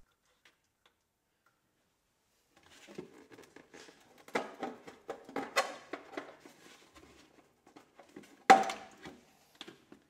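Handling noise: a loose run of light knocks, taps and rustles from about three seconds in, then one sharp knock a little past eight seconds, the loudest sound, and a small click near the end.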